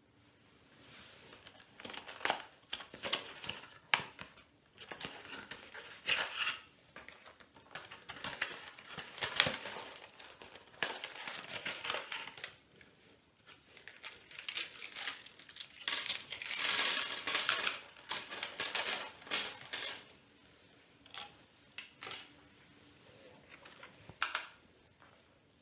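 Small hard plastic hexagonal Tantrix game tiles clicking and clattering against one another and the table, mixed with rustling of the cardboard box and paper packaging. The densest, loudest clatter comes about 16 to 19 seconds in, as a heap of tiles spills out onto the table.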